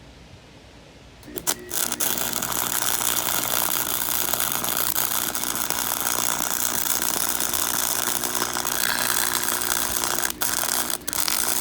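Cheap MIG welder's arc crackling steadily while running a weld bead on 1/8-inch steel flat bar, with a faint steady hum underneath. It strikes with a short sputter a little over a second in and stops briefly twice near the end.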